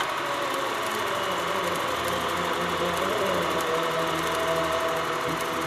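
Film projector running: a steady, even mechanical whirring clatter.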